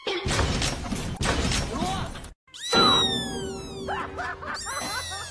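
Crash and clatter for about two seconds as a cat pulls a flat-screen TV down. After a brief silence comes a loud added comedy sound effect: a cry that slides down in pitch, over music.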